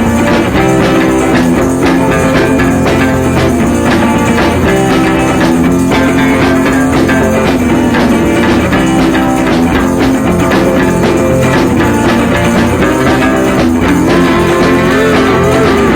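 Background music: a rock track with guitar and drums and a steady beat.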